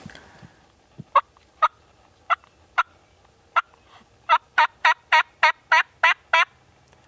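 Turkey yelping: five separate yelps, then a steady run of eight quicker yelps at about three a second.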